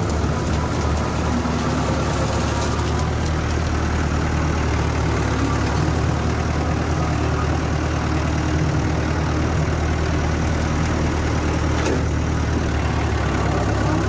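Tractor engine running steadily while mowing with a rotary cutter.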